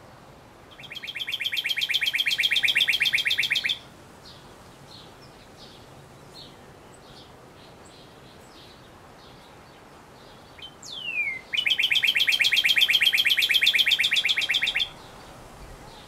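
Male northern cardinal singing: two long, rapid trills of about three seconds each, the second opening with a quick downward-slurred whistle. Fainter short chip notes between the trills.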